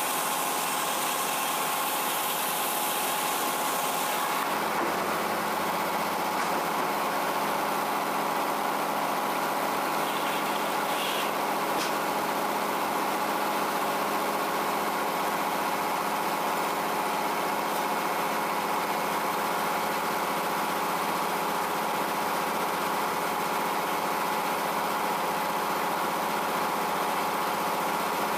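Power-unit engine of a Frick circular sawmill running steadily with the big circular blade spinning. A high hiss drops away about four seconds in, where the engine's tone also shifts.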